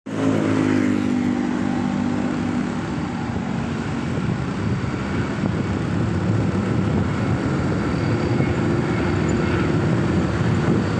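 Motorcycle running while riding along a road, its steady engine note clear for the first few seconds, then mostly covered by the rush of wind and road noise.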